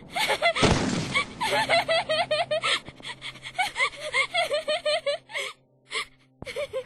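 A young woman gasping and whimpering in rapid, panicked breaths, several a second, in hysterical distress, with a sudden rushing hit about half a second in.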